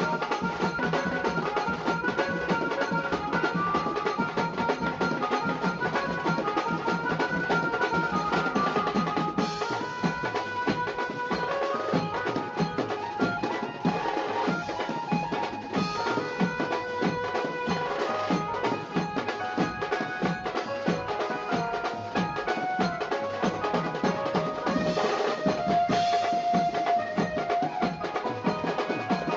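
Background music with busy, rapid drumming under a shifting melody.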